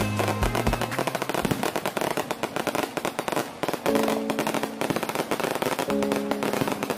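A long string of firecrackers going off in rapid, continuous crackling, with background music playing alongside.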